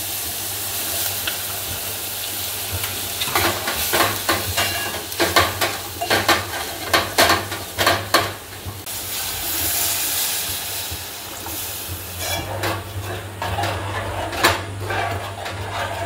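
Chopped onion and tomato sizzling in oil in an aluminium pot, with a spoon scraping and clinking against the pot as it is stirred. The clinks come in quick runs from about three to eight seconds in and again near the end.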